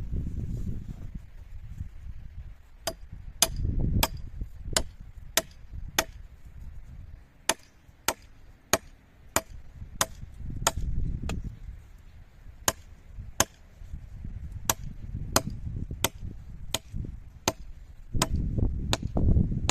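A hand tool striking again and again in an even rhythm, a little under two sharp strikes a second, with strong gusting wind rumbling on the microphone.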